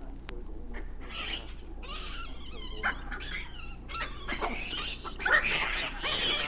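Animal calls: a run of short, separate yelps and squawks of varying pitch, some overlapping, with the loudest about five seconds in.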